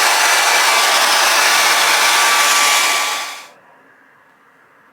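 Handheld hair dryer blowing steadily with a thin whine, drying a skin-protectant layer on the hairline. It is switched off about three and a half seconds in and quickly winds down.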